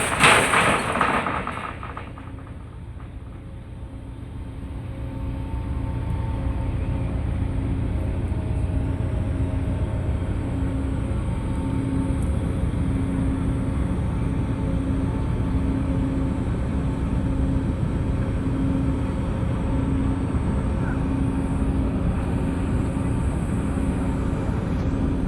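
Ship's engine running with a deep, steady rumble and a pulsing low hum. It builds over a couple of seconds and then holds steady, as when power is raised during berthing. A brief loud rush of noise comes right at the start.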